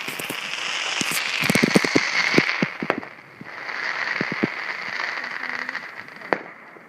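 Fireworks crackling and popping: a rapid string of sharp pops over a sizzling hiss, swelling twice, with one louder bang near the end.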